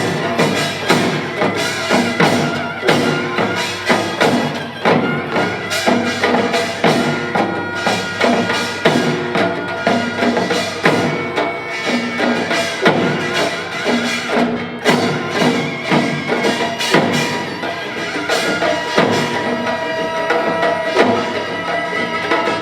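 Korean pungmul percussion ensemble playing a fast, dense rhythm: rapid drum strokes under ringing metal gongs.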